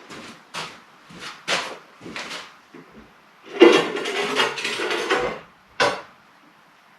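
Handling knocks and rustles: a few short knocks, then a longer scrape or rub lasting over a second, and a sharp knock near the end.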